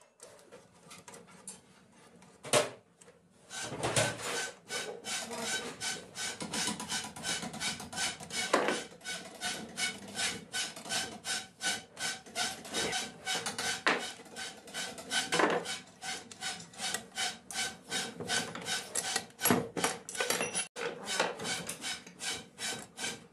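Metal scraping and clicking as a screwdriver works the shaft and screws inside a cast-iron sewing machine head: a quick, uneven run of strokes, several a second, with a sharp knock shortly before it gets going.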